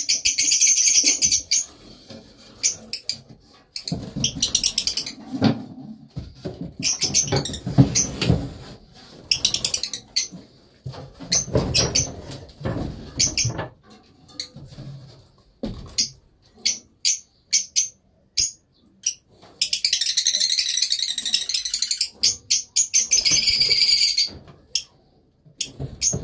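Small caged parrots chattering in bursts of shrill, rapid calls, with rustling and a run of separate clicks from movement in the cage in between.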